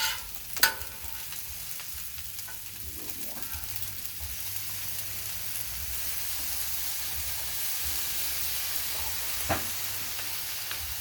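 Rice frying on a Blackstone flat-top griddle: a steady sizzle, with two sharp clacks, about half a second in and near the end.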